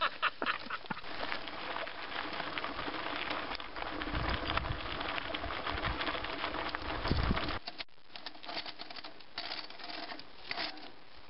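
Mountain bike on a gravel trail: tyres crunching and rattling over stones, with wind buffeting the microphone in the middle. Quieter for the last few seconds, with scattered small clicks.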